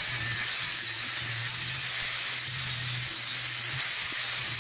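Angle grinder grinding on steel square tubing, a steady hiss over the motor's hum.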